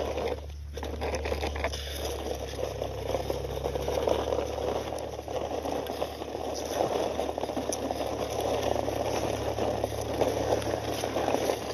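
Plastic toy jeep rolling along a concrete ledge as it is pushed by hand: its plastic wheels and body give a continuous rattling, scraping crackle, with a brief lull about half a second in.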